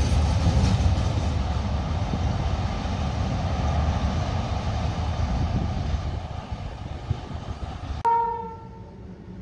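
Freight train's open wagons rumbling over the rails as the train moves away, the rumble slowly fading. About eight seconds in, the sound cuts abruptly to a brief train horn note that dies away.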